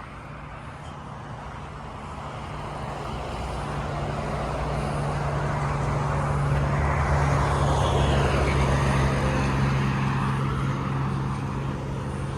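Road traffic: a motor vehicle passes close by, its noise swelling to a peak about eight seconds in and then fading, with a steady low hum and a slight falling pitch as it goes past.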